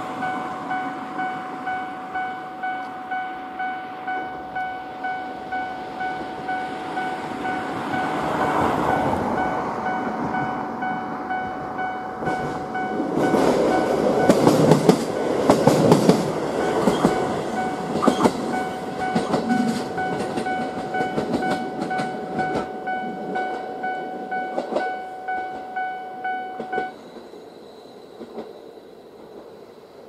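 A JR Hokkaido KiHa 40 diesel railcar passes with its wheels clattering over the rail joints, while a warning bell rings in an even, repeating pattern; the bell cuts off suddenly near the end, as the train moves off.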